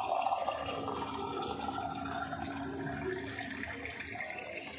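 Water pouring steadily into a container, as when filling a glass or jug with drinking water.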